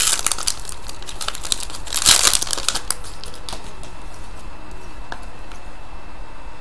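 Trading-card pack wrapper crinkling and crackling as it is opened and the cards are handled, with a louder crinkle about two seconds in; the crackling dies away after about three and a half seconds.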